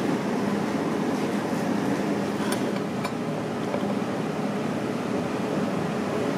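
Steady room noise with an even fan-like ventilation hum, and two light clinks of chopsticks against a ceramic dish about halfway through.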